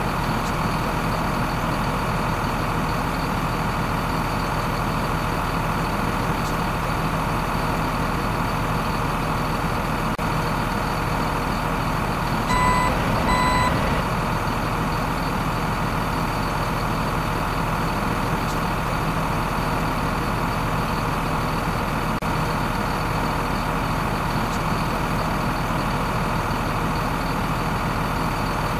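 A truck engine sound effect running steadily, with two short high beeps like a reversing alarm about 13 seconds in.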